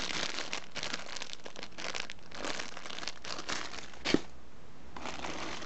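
Clear plastic parts bags crinkling and rustling as they are handled in fits and starts. There is one sharp click about four seconds in.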